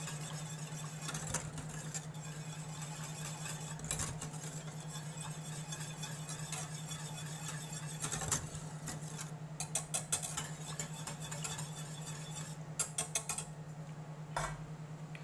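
A spatula stirring and scraping thickening bechamel sauce in a stainless steel saucepan, with scattered clicks and taps of the utensil against the pan and quick clusters of them about ten and thirteen seconds in, over a steady low hum.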